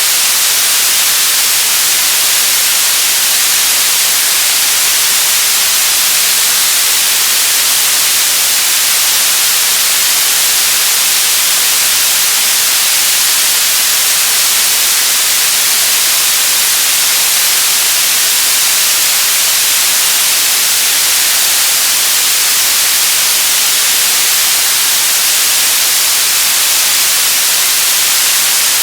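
Television static: a steady, loud hiss, strongest in the high frequencies and unchanging throughout.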